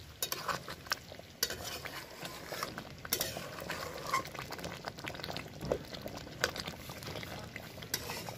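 Long metal spoon stirring chicken pieces in thick gravy in a large metal karahi, scraping the pan with irregular clinks against its side, a few of them sharper.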